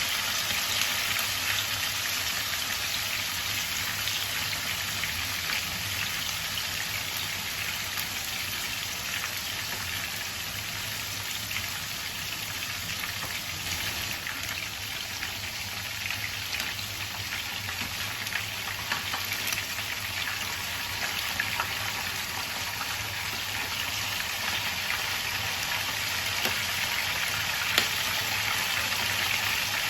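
Marinated chicken pieces half-frying in hot oil, sizzling steadily with occasional sharp pops of spattering oil.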